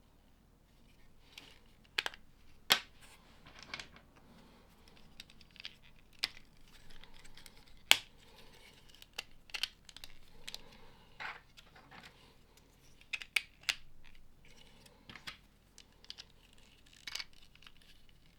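LEGO bricks being pressed and snapped together by hand, with irregular sharp plastic clicks and soft rustling of loose pieces in between.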